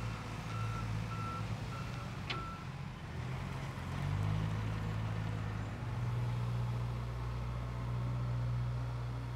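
A vehicle backup alarm beeps repeatedly for the first two and a half seconds over the low, steady running of a heavy diesel engine, with one sharp click about two seconds in. The beeping then stops and the engine grows louder about halfway through, running on steadily.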